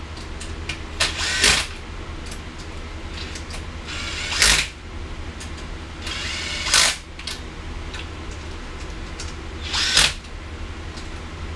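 Ratcheting wrench tightening the cylinder head stud nuts: four short bursts of ratchet clicking a few seconds apart as the nuts are taken down in sequence.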